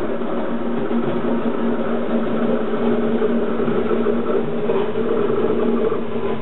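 Ex-DR V 100 diesel-hydraulic locomotive of the MWB running light at low speed, its diesel engine droning on a steady low note that grows slightly louder as it comes closer.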